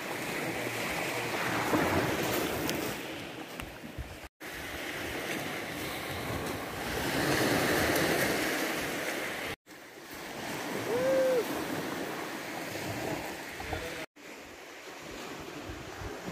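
Waves washing onto a pebble beach, with wind buffeting the microphone. The sound drops out briefly three times where clips are cut together.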